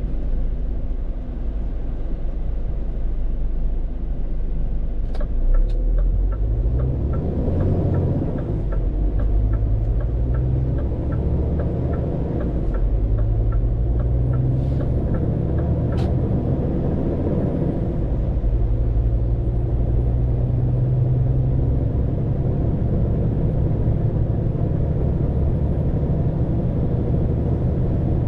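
Scania P410 truck's diesel engine heard from the cab, pulling away and climbing through the gears, its pitch rising in steps with each shift. A steady ticking runs for about ten seconds from about five seconds in.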